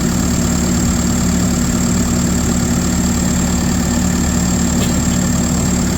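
Case 850M's diesel engine idling steadily with the air-conditioning compressor engaged, a constant low hum with a thin high whine alongside.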